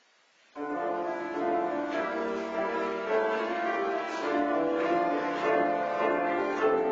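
Piano music begins suddenly about half a second in, playing held chords as the introduction to a church hymn.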